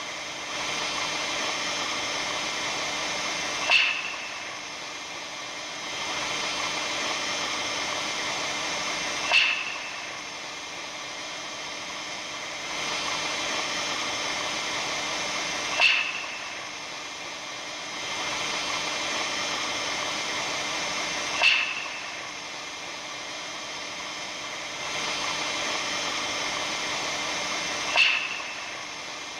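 Steady crackly hiss of a recording presented as the sound of the aurora borealis. It swells and eases in cycles of about six seconds, and a single sharp crackle comes about every six seconds, five times in all.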